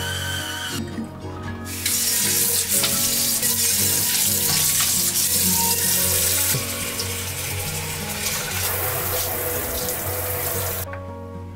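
Water running and splashing into a stainless steel kitchen sink, loudest in the first half and stopping suddenly near the end.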